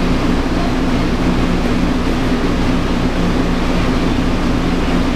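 Steady machine hum with a rushing noise underneath, unchanging throughout.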